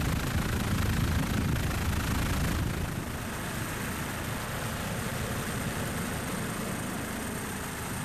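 Helicopter in flight: steady engine and rotor noise, a low drone with a hiss above it, dropping a little in level about three seconds in.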